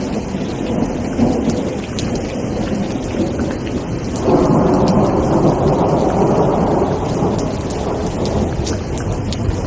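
Steady rain falling, with a roll of thunder that swells up about four seconds in and rumbles on.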